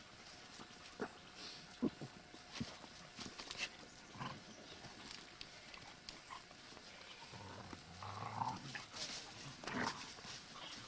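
Several dogs play-wrestling on dry fallen leaves: faint rustling and scuffling of paws, with a few short dog sounds.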